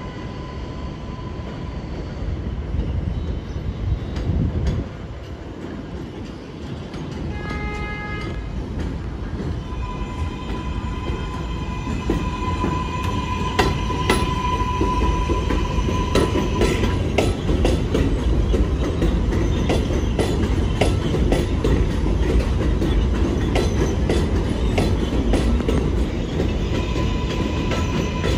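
R142/R142A subway train running through the station, growing louder as it comes closer, with a steady high whine and rapid clacking of wheels over rail joints. A brief horn-like tone sounds about eight seconds in.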